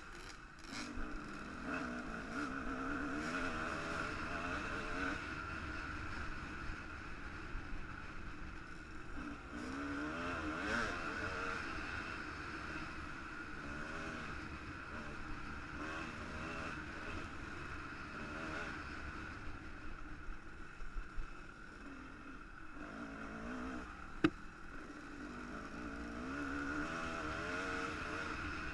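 1998 Kawasaki KX250 two-stroke dirt bike ridden along a dirt trail, the engine pitch repeatedly rising and falling with the throttle. A single sharp click sounds near the end.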